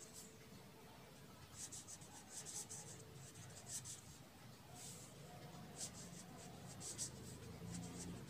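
Pen writing words on a sheet of paper: faint scratching in short, irregular strokes.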